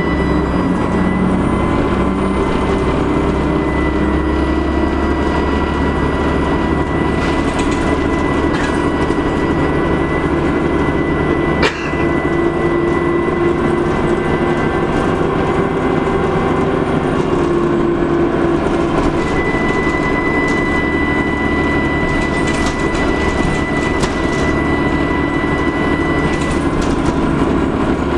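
Dennis Trident double-decker bus running, with its diesel engine's low note under the steady high whistle of its turbocharger, which grows louder for a stretch in the last third. One sharp click about twelve seconds in.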